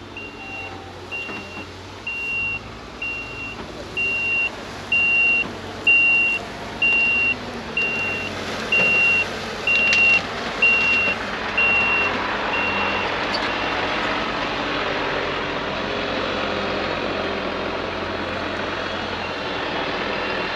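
Fire engine backing up, its reversing alarm sounding a steady high beep a little over once a second over the running engine. The beeps grow louder as it comes closer and stop about 13 seconds in, leaving the engine running.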